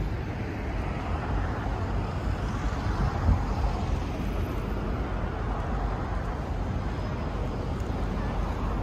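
Steady rumble of road traffic, an even noise with no distinct events.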